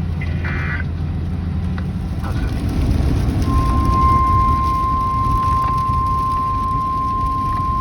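A short warbling data burst from the weather radio near the start, then the steady, unbroken NOAA Weather Radio warning alarm tone begins about three and a half seconds in and holds. This is the alert that comes before a new warning message. Underneath, a steady low rumble of vehicle and road noise, with rain.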